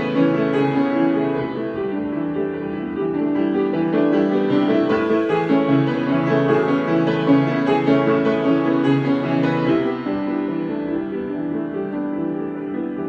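Piano improvisation: many overlapping held notes and chords played continuously, a little softer near the end.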